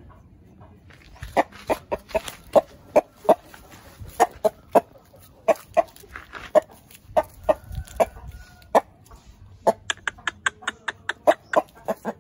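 Bangkok gamecock rooster giving a long series of short, sharp clucks, about three a second. The clucks start about a second in and come faster near the end.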